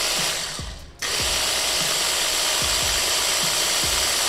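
Pisces PHB400 hand blender's motor running the chopper attachment with an empty bowl, a steady motor hum with a faint rattle; it stops for a moment about a second in, then starts again and runs on.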